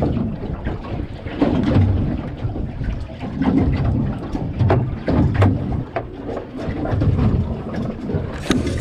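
Gusty wind buffeting the microphone on a small fishing boat, in uneven low surges, with scattered knocks and clicks.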